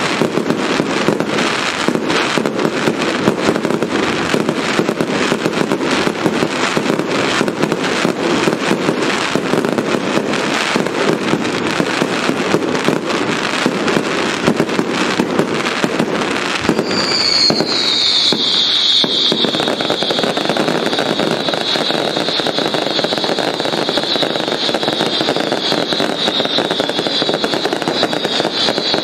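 Fireworks display: a dense, continuous barrage of bangs and crackling. About seventeen seconds in, a loud, shrill high-pitched sound starts, dips slightly in pitch, and holds through the end over the crackle.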